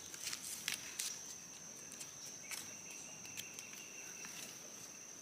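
Faint, steady high-pitched insect chirring, with a second, lower insect tone joining for a second or two around the middle. Scattered small crackles of dry leaf litter as the mushroom is pulled from the forest floor.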